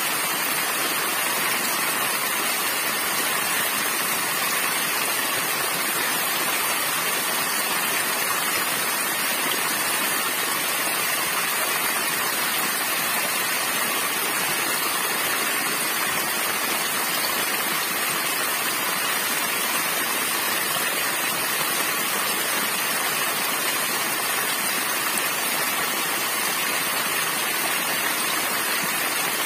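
Small waterfall: thin streams of water falling over a rock ledge and splashing onto rock and into shallow water, a steady, unbroken rush.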